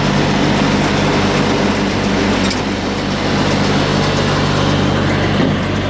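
Steady engine running at an even speed, driving a Range Road mini baler as it works, with one sharp click about two and a half seconds in.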